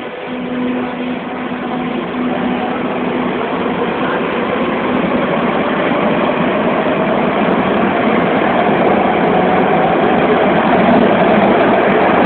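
Madrid Metro series 5000 electric train pulling out of the station: its traction motors give a whine that rises in pitch as it gathers speed, over wheel and running noise that grows steadily louder. A steady hum sounds in the first few seconds and fades out.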